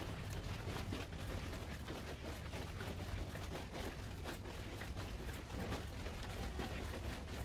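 Faint irregular footfalls and rustles from people walking on carpet and a handheld camera being carried along, over a steady low hum.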